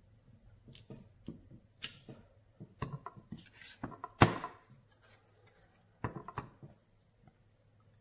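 Clear acrylic stamp block with a photopolymer leaf stamp tapping and knocking against an ink pad and cardstock as the stamp is inked and pressed down. Scattered light clicks, the loudest about four seconds in, with another short cluster about six seconds in.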